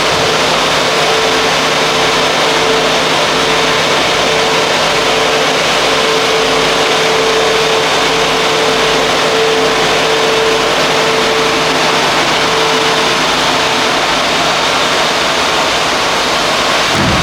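Mercedes Sprinter 516 van's engine running steadily, a dense even noise with a steady hum that fades out about thirteen seconds in.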